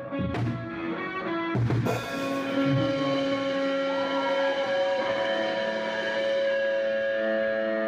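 Rock band playing live: electric guitar chords and notes ringing out long and steady, with two crashing drum-kit hits about half a second and about two seconds in.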